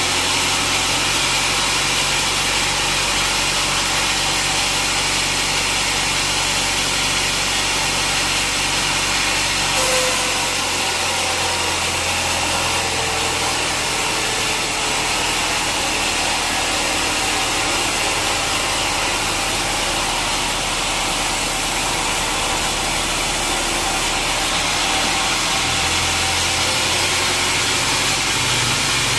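Sawmill machinery running steadily, a loud even mechanical noise with a low hum underneath.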